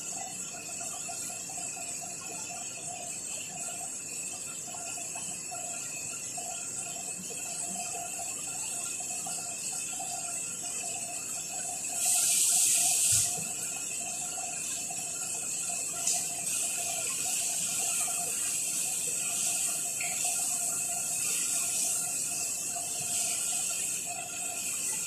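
Chicken and vegetables sizzling as they sauté in a pot on a gas stove: a steady crackling hiss, with a louder rush of noise for about a second near the middle and a few light knocks toward the end.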